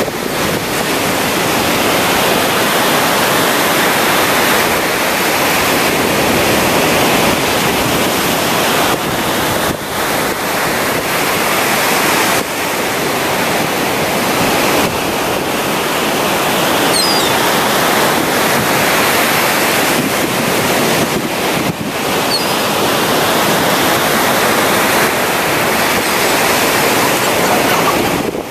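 Surf breaking and washing continuously on a sandy beach, with the roar swelling and easing wave by wave, mixed with wind rushing over the microphone.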